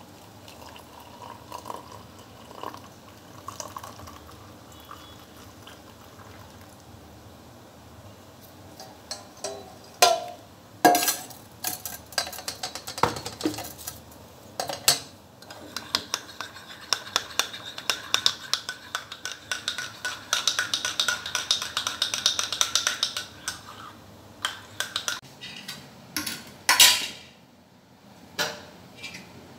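A metal spoon clinking against a ceramic mug: scattered knocks at first, then a long run of rapid clinks as the drink is stirred, and a few louder knocks near the end.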